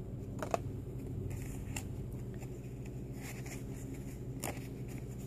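Paper index cards being handled and set down: a few light taps and brief rustles over a steady low hum.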